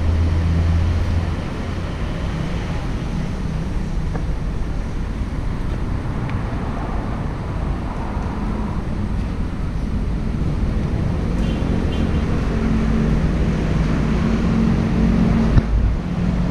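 Road traffic noise with vehicle engines running close by. There is a deep engine hum at the start, and another engine note comes up in the second half.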